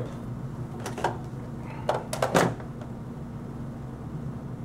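A few short knocks and clicks of things being handled on a tabletop, about a second in and again around two seconds in, over a steady low hum.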